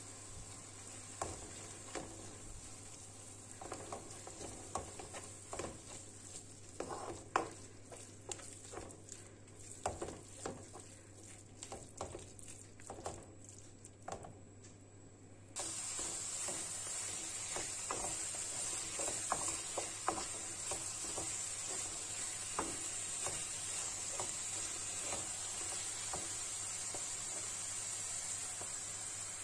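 Wooden spatula stirring and scraping chopped broccoli leaves and sliced green olives around a nonstick frying pan while they sizzle in oil. The scrapes come irregularly throughout. About halfway through, the sizzling hiss suddenly gets louder and stays steady.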